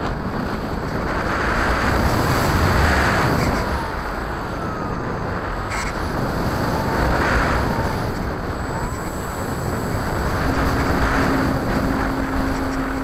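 RC model airplane in flight heard from its onboard camera: wind rushing over the microphone mixed with the propeller's drone, swelling and easing about three times as the plane maneuvers. A steady hum comes in near the end.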